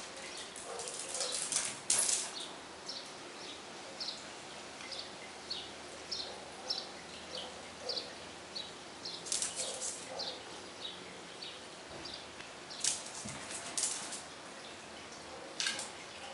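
Small birds chirping: short high chirps repeated about every half second throughout, with a few brief scuffling noises at intervals.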